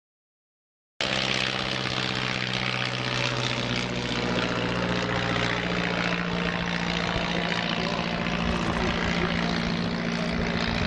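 De Havilland Tiger Moth biplanes flying overhead, their propeller engines giving a steady droning hum. The sound cuts in abruptly about a second in and holds steady.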